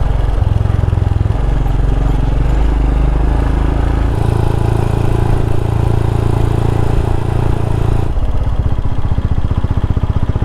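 Royal Enfield Himalayan's single-cylinder engine running while riding a gravel track. The engine note changes about four seconds in and again near eight seconds, as the throttle or gear changes.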